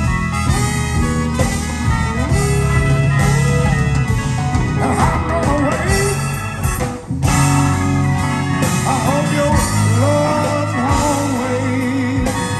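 Live blues band playing, with electric guitar and singing over bass and drums, and a short break in the sound about seven seconds in.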